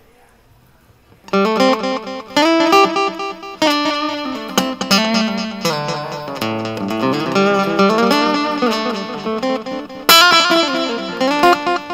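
Acoustic-electric guitar played through a Mr.7 GA-40R 40-watt guitar amplifier: after about a second of quiet, a picked melodic passage with chords, a brief dip near the end, then a loud chord.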